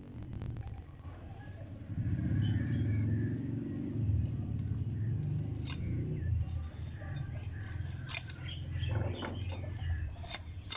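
Hand pruning shears snipping side shoots off a pomegranate tree: several short sharp clicks, mostly in the second half. Under them a low rumble sets in about two seconds in and is the loudest thing heard.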